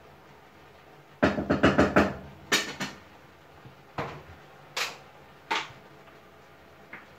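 Kitchen clatter of utensils and steel cookware: a quick run of about six sharp knocks, a couple more just after, then single knocks spaced roughly a second apart, each with a short ring.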